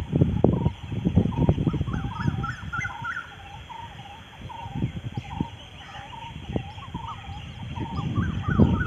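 A flock of birds calling with many short, repeated notes. Low rumbling bursts come over the first few seconds and return near the end.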